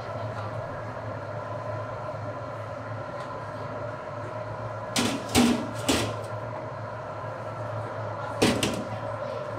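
Wire mesh strainer knocking against stainless steel as scoops of cooked chicken drumsticks are tipped into a perforated steel pan: three sharp knocks a little past halfway and two more near the end, over a steady machine hum with a few fixed tones.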